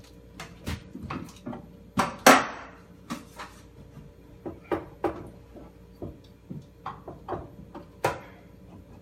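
Irregular wooden knocks and clicks as a small drawer unit and a clamp are handled and fitted against the underside of a wall cabinet. The loudest knock comes about two seconds in.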